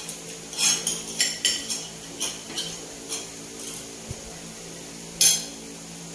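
Cutlery clinking against a plate as someone eats: about a dozen short, irregular clinks, the loudest about five seconds in, over a faint steady low hum.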